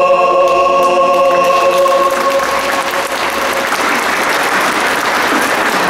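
A mixed choir holds its final chord, which dies away about two seconds in as applause starts and takes over.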